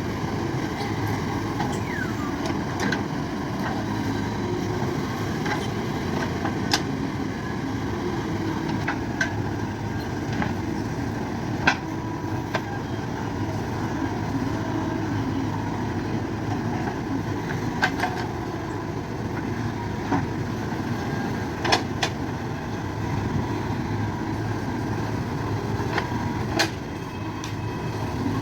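A JCB's diesel engine running steadily, with a sharp clank every few seconds.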